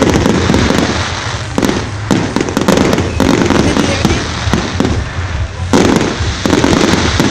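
Fireworks display going off: many sharp bangs and crackles in quick succession.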